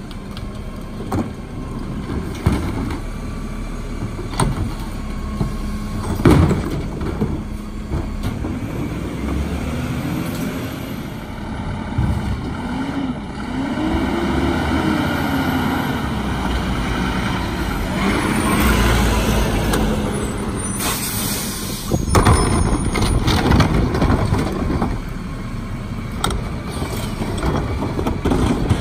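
Mack MRU rear-load garbage truck with a Heil Formula 5000 body at work. Its diesel engine runs and rises and falls in pitch as it drives, air brakes hiss a little past two-thirds of the way in, and loud knocks and clatter follow as carts are tipped into the hopper.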